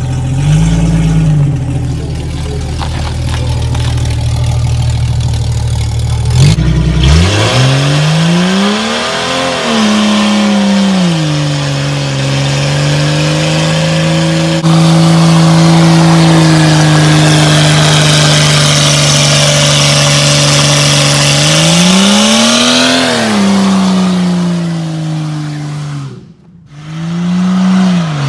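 Straight-piped 4.0 litre straight-six of a 1997 Jeep Cherokee, running low with a quick blip, then revved hard about seven seconds in and held high while the rear tyre spins and squeals in a smoky burnout. Near the end the revs drop away sharply, then it revs up again.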